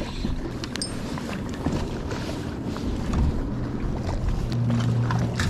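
Wind rumbling on the microphone over the open-water noise of a boat, with a few faint ticks. A low steady hum grows stronger about four and a half seconds in.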